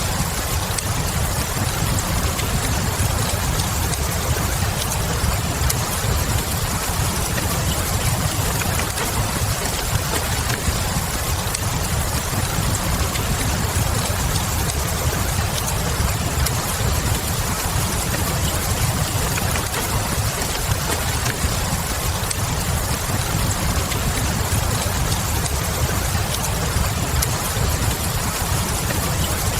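Steady rain with a low rumble underneath, and a wood fire crackling with small scattered pops through it.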